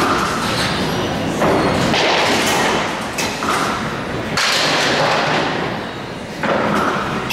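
Bowling alley din: candlepin balls thudding and rolling on the wooden lanes and pins clattering. The noise comes up sharply three times.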